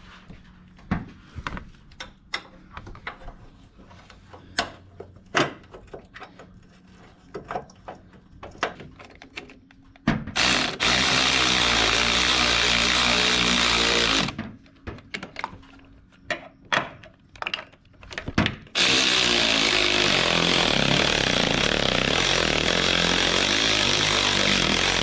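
Light clicks and taps of tools and parts being handled, then a power tool runs twice, for about four seconds and then for about six seconds, driving in bolts on a Ford Focus engine during reassembly.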